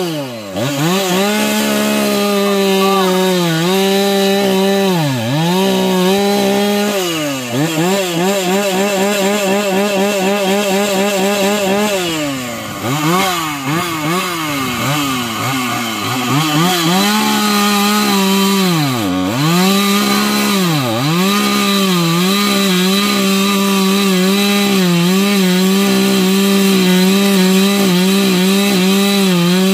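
Gas two-stroke chainsaw running at high revs while cutting a firewood log, its engine note dipping and recovering several times in the first two-thirds, then holding steady for the last several seconds.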